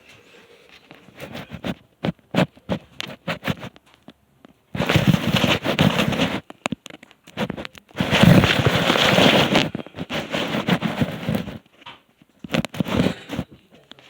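Handling noise from the recording device being picked up and repositioned: scattered clicks and knocks, then two long stretches of loud crackling and rubbing against the microphone, about five and eight seconds in.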